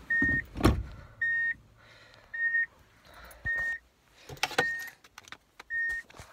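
Subaru Impreza's in-car warning chime beeping six times, one steady tone about once a second. A short low thump and some handling clicks come with it near the start.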